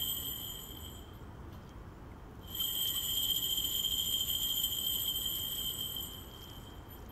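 Steady high ringing tones at several pitches. They fade out soon after the start, come back suddenly about two and a half seconds in, and fade again near the end.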